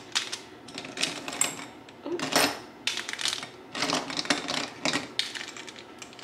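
Plastic Sharpie markers clattering against one another as they are pulled from a crowded cup and set down: a quick, irregular run of light clicks and clacks.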